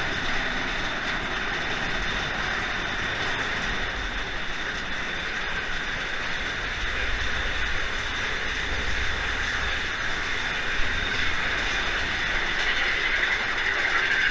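Mine-train roller coaster cars rolling along their track, a steady rumble and hiss of the train running.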